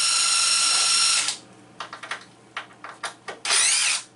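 Cordless drill/driver backing out the bolts that hold the old over-the-range microwave up to the cabinet: a steady whine for about a second, then a few clicks and knocks, then a second short whine whose pitch wavers as the speed changes near the end.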